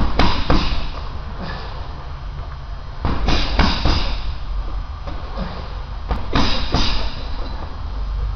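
Gloved punches landing on a hanging heavy bag in short combinations: two hits at the start, three a little past three seconds in, and two more past six seconds, each a sharp thud. A steady low rumble runs underneath.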